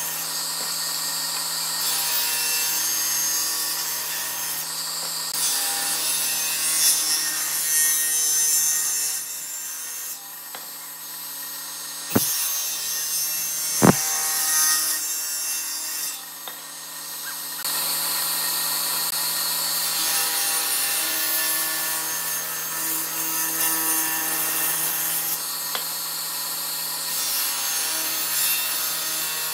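Table saw running with a steady motor hum, its blade ripping through wood blocks pass after pass. The cutting noise eases twice in the middle, between passes, and two sharp knocks come near the middle.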